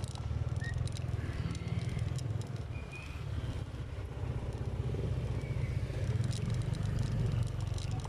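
Engine of a moving vehicle running steadily on the road, a low rumble throughout.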